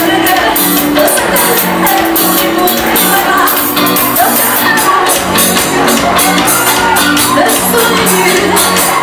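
Loud live band music with a steady drumbeat and held bass notes, played through a concert sound system.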